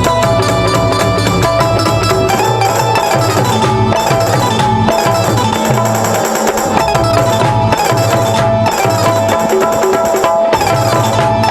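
Instrumental passage of a Rajasthani devotional bhajan: a held, sustained melody line over busy, steady hand percussion, with no singing.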